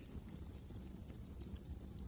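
Wood fire crackling in a fireplace: a sharp pop at the start, then a few faint ticks over a low, steady rumble of the flames.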